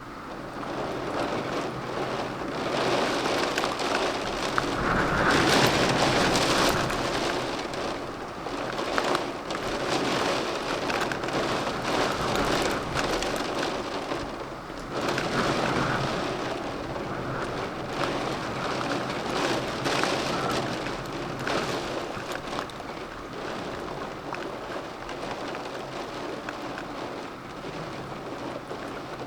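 Heavy rain falling in a storm, a dense patter that swells louder about five seconds in and again around the middle, then eases off toward the end.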